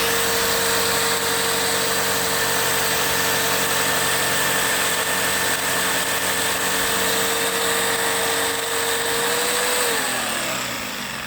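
Jigsaw with a marble blade cutting quartz countertop, its motor running at a steady high pitch. Near the end the motor is let off and winds down with a falling pitch.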